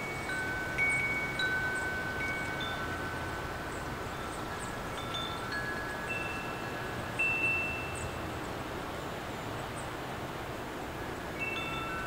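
Wind chimes ringing at random in the breeze. Several different notes are struck every second or so and each one rings on for a few seconds, overlapping, over a steady rush of wind.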